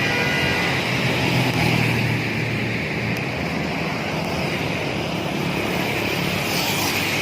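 Highway traffic going by: a heavy diesel vehicle's engine and tyre noise, strongest in the first couple of seconds and then settling into a steady road roar.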